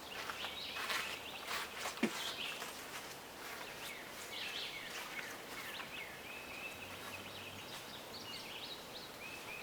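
Birds chirping over a faint outdoor background hiss, with short repeated calls and a held high note in the second half.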